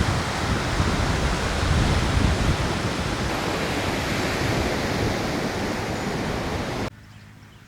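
Loud, steady rush of wind and sea with wind buffeting the microphone, cutting off abruptly about seven seconds in.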